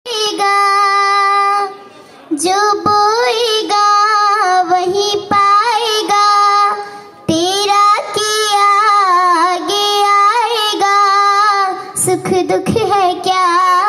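A young girl singing solo into a microphone, unaccompanied, in long held notes and winding melodic phrases, pausing briefly for breath about two seconds in and again about seven seconds in.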